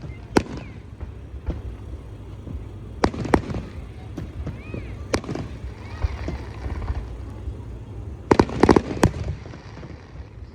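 Aerial fireworks display: single sharp bangs every second or few, then a rapid cluster of loud bangs about eight seconds in, over a continuous low rumble.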